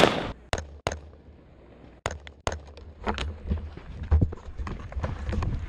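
Handling noise from a camera and an AR-15 rifle: four sharp clicks in the first two and a half seconds, then from about three seconds in a low rumble with small rattles and ticks as the rifle with the camera mounted on it is moved.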